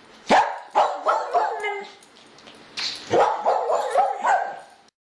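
A dog barking in quick runs: about five barks in the first two seconds, a short pause, then about five more, cutting off abruptly near the end.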